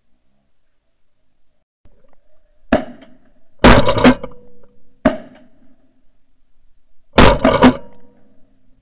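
Shotgun fired at geese flying overhead. There are four reports: two sharp single cracks, a little under three seconds and about five seconds in, and two much louder shots about four and seven seconds in, each a cluster of cracks lasting about half a second.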